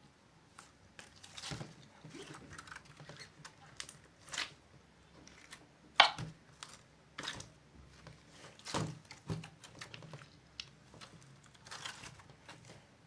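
Slime being squished and pulled by hand: irregular wet clicks and small pops, the sharpest pop about six seconds in.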